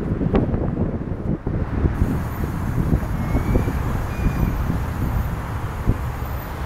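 Wind buffeting the microphone of a camera mounted on the outside of a moving truck, a rough, fluctuating low rumble over the truck's road and traffic noise.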